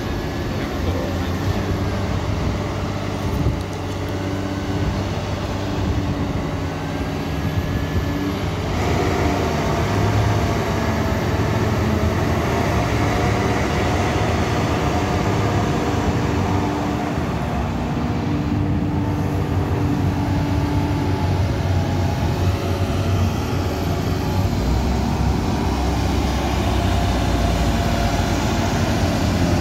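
Cat 320D FM forestry excavator's diesel engine running steadily under working load. Hydraulic whine comes and goes in held tones and short rising glides as the boom and Waratah processor head are moved and the upper house slews.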